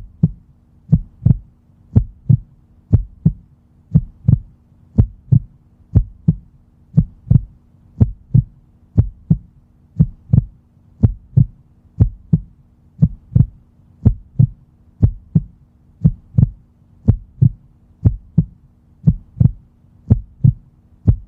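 Heartbeat sound effect: a steady lub-dub, low thumps in even pairs repeating at a regular pace.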